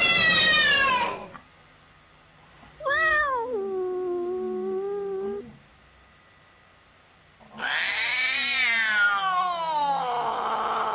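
A man imitating a cat meowing with his voice, three meows. The first tails off about a second in, a shorter one falls then holds steady about three seconds in, and a long drawn-out one rises and then falls near the end.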